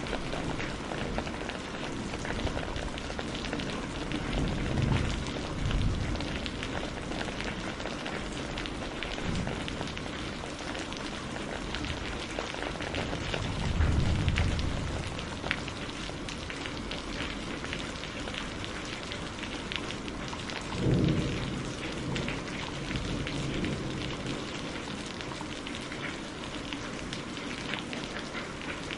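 Steady rain with drops pattering throughout, and three low rumbles of thunder: about five seconds in, around the middle, and about two-thirds of the way through.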